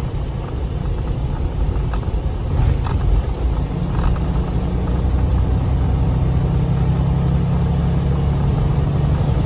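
Semi truck driving, heard from inside the cab: a steady low rumble of engine and road noise, with a steady low hum that settles in about two and a half seconds in.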